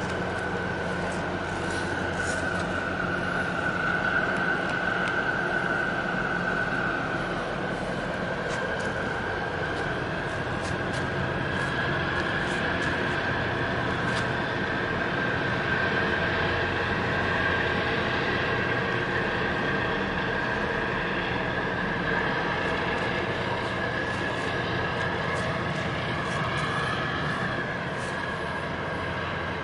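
Steady machinery drone from a large container ship passing close by with a harbour tug alongside: a low engine hum under a high, steady whine that rises slightly midway.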